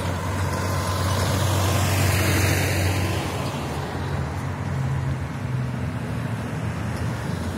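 A box truck drives past close by, its diesel engine and tyres loudest about two seconds in. After that comes steadier traffic noise as a car towing a caravan approaches.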